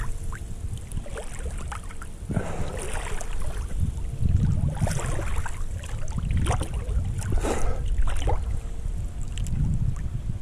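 Lake water from an incoming boat wake sloshing and splashing against a camera at the water's surface, in irregular splashes every second or two over a low rumble.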